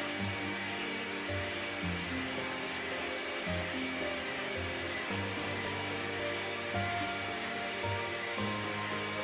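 Background music with notes changing about every second, over the steady whir of an electric hand mixer running at medium speed as its beaters whip whole eggs and sugar into a foam for a génoise sponge.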